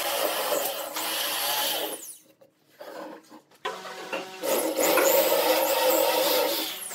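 Electric hand drill boring into wood, the motor whining as the bit chews out chips. The drilling stops about two seconds in, then starts again about a second and a half later and runs on until near the end.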